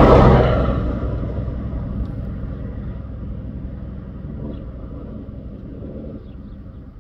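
A motor vehicle passing close by, loudest at the start, then its engine and tyre noise fading steadily as it drives away, leaving a low rumble.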